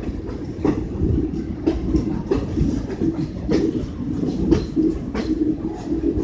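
Passenger train running on the rails: a steady rumble with wheels clacking over rail joints about once a second.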